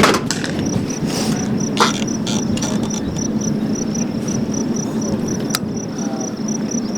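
Cricket chirping in an even high-pitched pulse, about three chirps a second, over a steady low rumble, with a few sharp cracks of air rifle shots.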